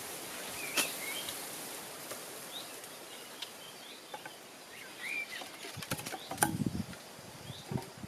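Birds chirping in short, scattered calls over a faint outdoor background, with a few sharp clicks and low soft knocks in the second half.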